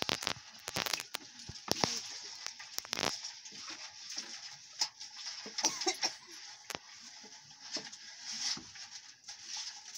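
Open wood fire under a pot of palm-leaf dye: a steady hiss with scattered sharp crackles and a few knocks.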